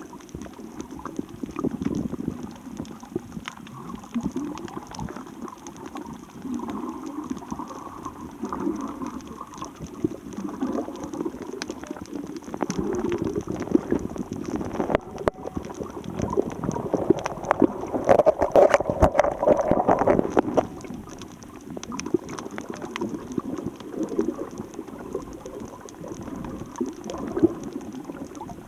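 Seawater sloshing and gurgling with bubbling and small clicks, rising to its loudest about two-thirds of the way through.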